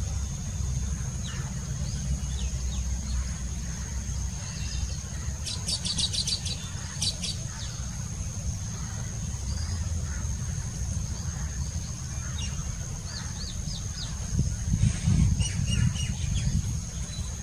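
Baya weaver chattering in quick series of high chirps, one burst about six seconds in and more from about thirteen to sixteen seconds. Under it run a steady low rumble and a thin, steady high whine.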